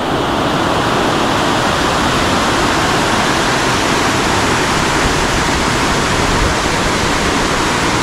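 White water of a rock-slab cascade waterfall rushing steadily down bare sloping rock, a dense even hiss that does not change.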